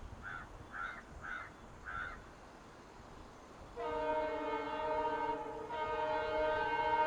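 Four short high chirps, then the multi-tone horn of an EMD WDP 4 diesel locomotive sounding from about four seconds in. The horn gives two long blasts with a brief break between them.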